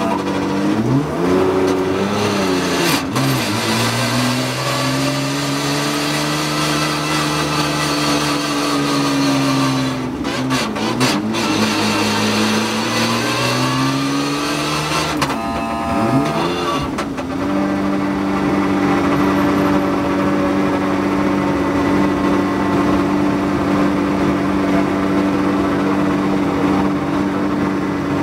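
Porsche 991.2 GT3 Cup car's flat-six engine heard from inside the cockpit, pulling at low revs. Its pitch rises and falls with the throttle, with a few brief clicks, then holds steady for the last third.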